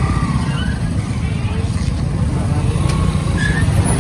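Motorcycle engine running at low speed in slow, congested traffic: a steady low rumble.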